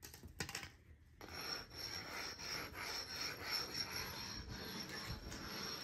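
Hand-held sanding block (rubbing stone) rubbed back and forth over a dried microcement base coat, grinding off lumps and imperfections while the coat is still soft. The repeated strokes start about a second in, after two short scrapes.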